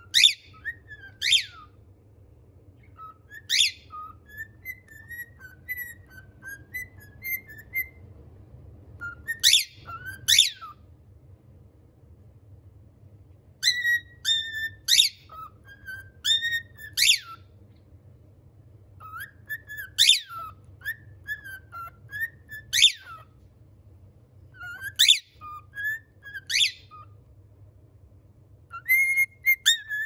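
Male pied cockatiel whistling its song: loud, sharp whistled notes that sweep down in pitch, often in pairs, with softer warbling chirps between them.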